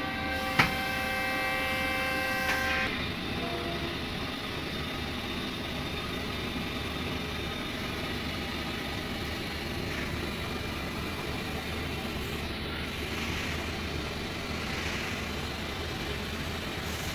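A horn sounds on one steady tone for about three seconds, with a sharp click about half a second in. After it stops, only a steady low rumble of background noise remains.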